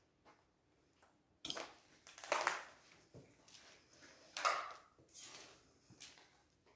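Footsteps on a floor strewn with rubble and broken glass: about five irregular, noisy steps, roughly a second apart.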